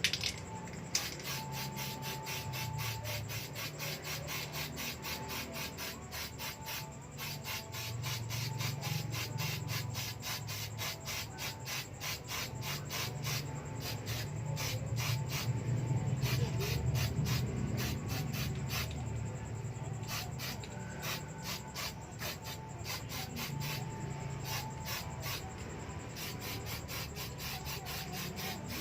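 Quick, even back-and-forth hand rubbing strokes on the metal body of a motorcycle exhaust muffler, with a few short pauses: surface preparation of the rebuilt muffler before it is spray-painted.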